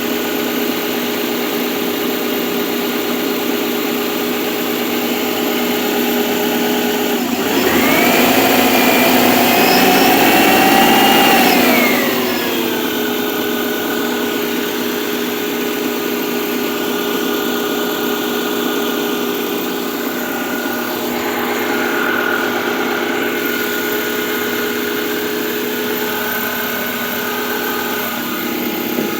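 1999 Subaru Legacy Outback's flat-four engine idling with a tapping knock, which the owner takes for cold-start piston slap. About a quarter of the way in it is revved up, held for a few seconds, then drops back to idle.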